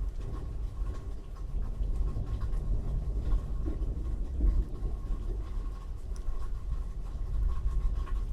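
Thunderstorm: a low, rolling rumble of thunder that swells and eases, over a steady patter of rain.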